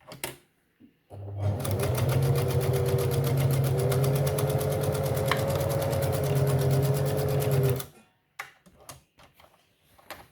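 Singer 7104 electric sewing machine running at speed, its needle mechanism clattering in rapid, even strokes over a steady motor hum as it stitches through several folded layers of material. It starts about a second in and stops sharply near the end, with a few small handling clicks before and after.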